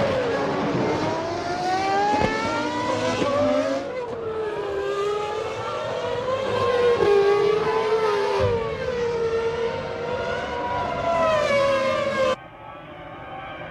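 1998 Formula One V10 engines at high revs, the pitch climbing and falling repeatedly through gear changes and braking. The sound cuts abruptly three times, the last time to a duller, quieter engine sound.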